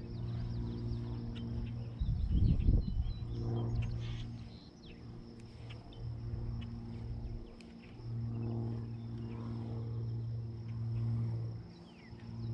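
American bullfrog calling: a deep, droning note repeated in several long stretches with short gaps between them. About two seconds in, a brief low rumble of noise is louder than the calls.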